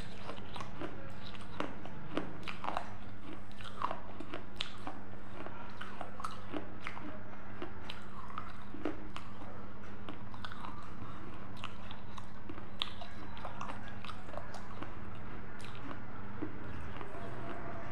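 A person chewing crunchy food with the mouth closed, close to a lapel microphone: a run of irregular, crisp crunches.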